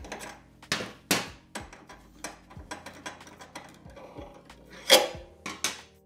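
Irregular metallic clicks, knocks and scrapes of a socket wrench working the mounting bolts of a washing machine's drive motor. The loudest knock comes about five seconds in.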